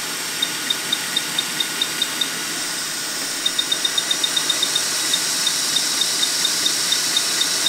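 Quick 861DW hot air station blowing a steady hiss of air while its temperature-up button beeps at each step as the set point is raised toward 400 degrees. The short high beeps come about four a second, then in a quick run of about nine a second in the middle as the button is held, then about three a second; the hiss grows a little louder about halfway through.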